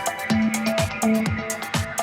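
Electronic music with a steady, fast kick-drum beat, sharp hi-hat ticks and held synth notes.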